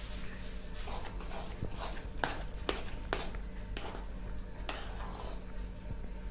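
Metal spoon stirring gram flour into ghee in a steel kadhai, scraping and clinking against the pan at irregular moments.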